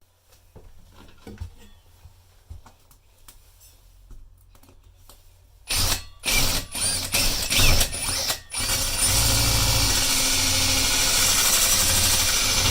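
Light mechanical clicks and ticks from tools being handled, then a motorised tool starting in short stop-start bursts about six seconds in and running steadily from about nine seconds, with a low hum under the noise.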